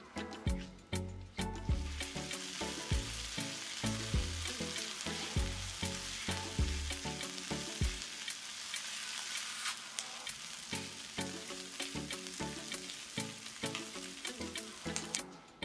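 Diced onion sizzling in olive oil in a nonstick frying pan as a silicone spatula stirs it, the sizzle swelling about two seconds in. Background music plays underneath.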